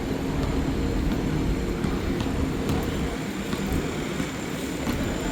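City street traffic noise: a steady rumble of passing vehicles and engines, with a few light clicks.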